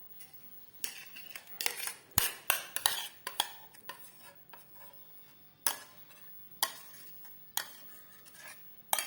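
Metal spoon scraping and clinking against a pot and a small glass jar as cream is spooned into the jar, in irregular short strokes.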